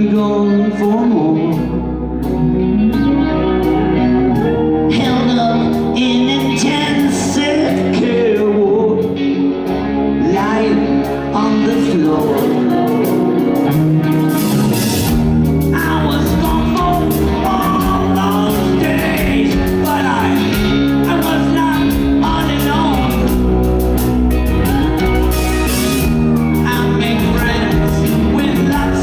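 Live rock band playing, with a male lead vocal over electric guitar, bass and drums. The sound fills out about twelve seconds in as cymbals come in.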